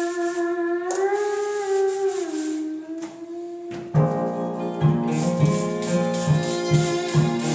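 Background country-rap music: a single held, wavering note, then about four seconds in a full band comes in with a steady beat.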